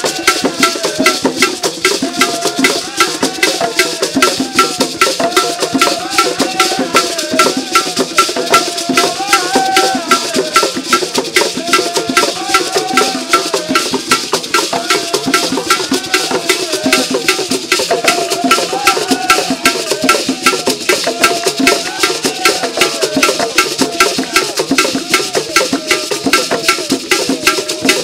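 Ghanaian traditional drum ensemble playing a fast, steady dance rhythm, with voices singing a wavering melody over the drums.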